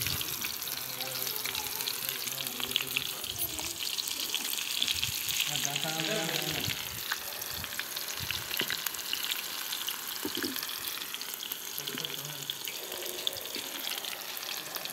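Battered gram-flour pakoras deep-frying in hot oil in an iron kadhai: a steady crackling sizzle with many small pops.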